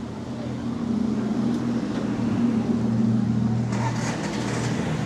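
A motor vehicle's engine running close by, growing louder over the first second and easing off near the end, as it passes in the street. A short hiss comes about four seconds in.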